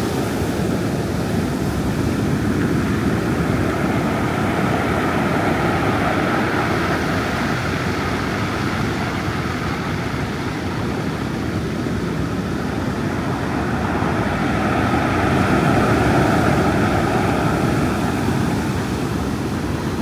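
Storm surf on the Black Sea: waves breaking continuously and washing up a pebble beach in a steady rush of foam, swelling a little near the end.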